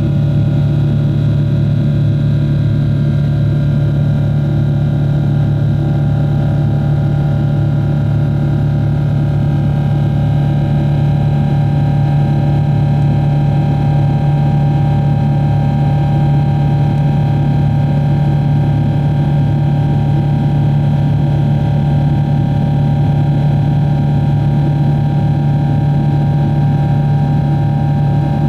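Cabin noise of a Boeing 777-300ER climbing out, heard at a window seat beside its GE90-115B engine: a loud, steady drone with a deep hum and several steady higher whining tones from the engine.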